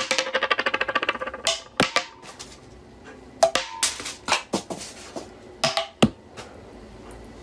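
Plastic screw cap of a two-litre soda bottle being worked by hand: a fast run of clicks for about the first second and a half, then separate sharp clicks and taps.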